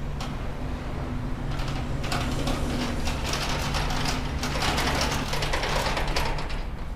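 A run of mechanical rattling, clicking and scraping over a steady low hum. The rattling builds about a second and a half in and fades near the end.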